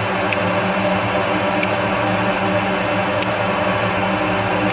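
Rotary tool fitted with a carbide burr running steadily, drilling out carbonised material from a burnt hole in a circuit board, with a few faint ticks about every second and a half.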